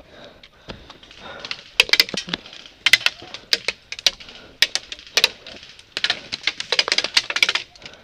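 Airsoft guns firing: scattered sharp shots and short rapid bursts, starting about two seconds in and thickest near the end.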